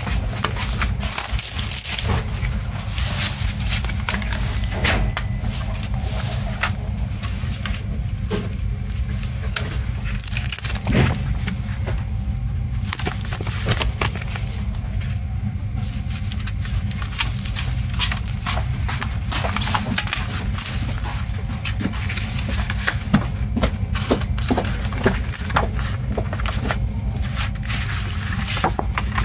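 Hands handling a CD's plastic jewel case, photo card and paper booklet: scattered clicks and taps of plastic and the rustle of paper as the booklet is unfolded, over a steady low rumble.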